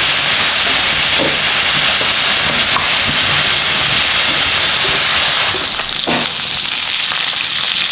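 Pieces of pork frying in a pan, a steady sizzling hiss.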